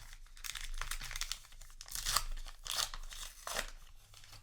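Foil booster-pack wrapper of a trading card game being handled and crinkled, a dry rustle with a few sharper crackles in the second half.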